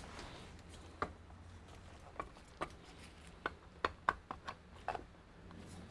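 Irregular light clicks and taps, about ten of them, from small objects being handled on a repair bench, over a faint steady low hum.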